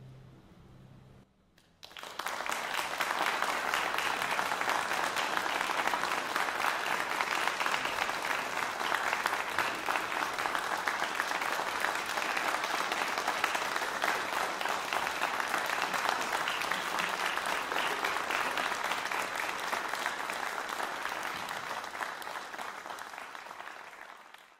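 The orchestra's final chord fades away, and after a brief pause the audience breaks into steady applause, which tapers off near the end.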